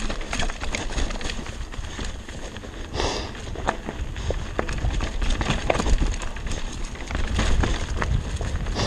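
Mountain bike rolling fast down a rocky, leaf-strewn dirt trail: tyre noise over the ground, with frequent sharp rattles and knocks from the bike over roots and rocks, a brief swish about three seconds in, and wind rumbling on the microphone, louder toward the end.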